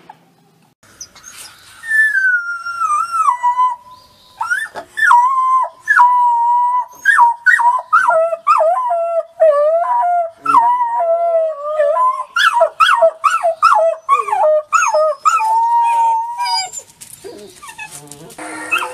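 Several wolf pups howling together, high and wavering, with two voices often overlapping. The long howls break into many short, quick calls. It starts about two seconds in and fades near the end.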